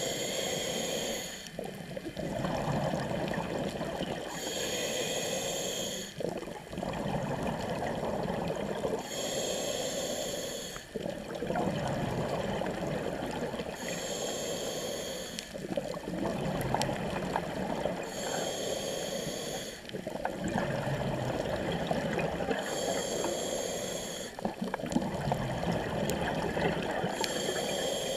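Scuba diver breathing through a regulator, heard underwater: a short hissing inhale about every four and a half seconds, with the bubbling rush of exhaled air in between.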